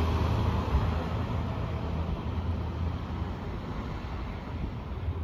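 Steady low rumble of road traffic and idling vehicles, a little louder at the start and easing off after about two seconds.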